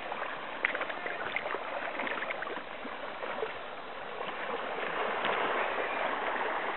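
Shallow stream water running and rippling, a steady hiss that swells slightly in the second half, with a few faint clicks.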